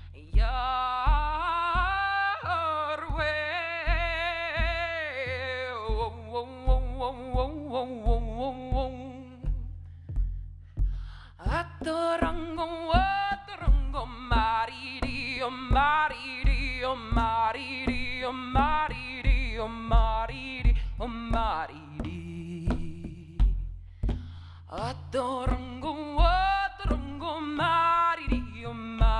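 An icaro sung by a solo voice without words, a wavering melody in long phrases with short pauses about ten and twenty-two seconds in, over a steady low hum and a regular low beat.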